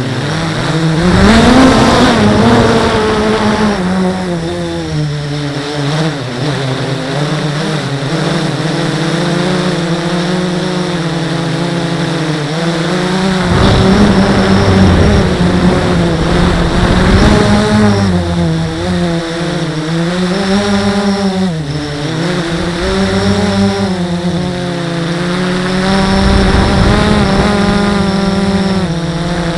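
Blade 350 QX quadcopter's brushless motors and propellers whining, the pitch rising and falling as the throttle changes through the flight. It is heard from the camera on board the drone, with a low rumble at times.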